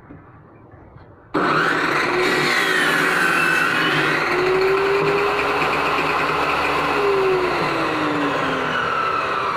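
Homemade table saw ripping a long wooden strip: a loud, dense whine of the circular blade cutting wood that starts abruptly about a second in. Its pitch sags and recovers as the board is fed through, and it cuts off suddenly at the end.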